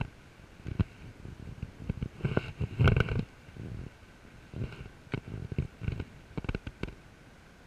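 Close handling noise from a spinning rod and reel: rumbling knocks and rustles, loudest about two to three seconds in, then scattered clicks as the reel is worked.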